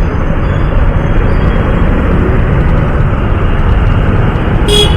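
Wind buffeting the microphone and road noise from a Honda CD 110 motorcycle on the move, a loud steady rush. A short pitched sound comes in near the end.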